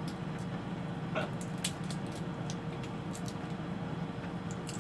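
Crab being eaten by hand: scattered small clicks and crackles of shell being picked apart and meat being chewed, over a steady low hum.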